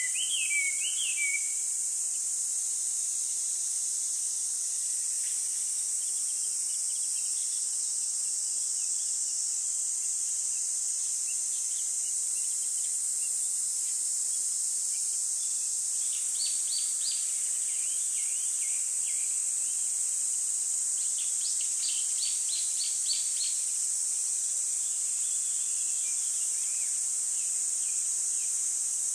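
Small birds chirping in quick runs of short, repeated notes, several times over, above a steady high-pitched hiss.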